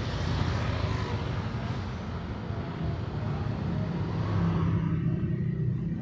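Street traffic noise: a low rumble of vehicle engines with a broad rush that dies down near the end.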